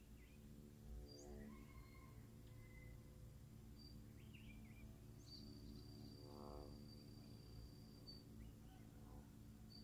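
Near silence with faint scattered bird chirps and whistles over a low steady hum; one long, steady high whistle holds for about three seconds from around five seconds in.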